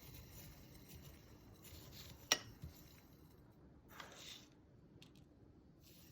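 Quiet food-preparation handling noises: one sharp click a little over two seconds in, a soft knock just after it, and a brief rustling scrape about four seconds in.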